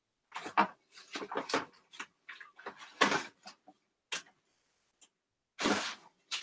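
Cardboard USPS Priority Mail boxes being pulled out and handled: a run of irregular taps, clicks and short scrapes, with a longer rustle near the end.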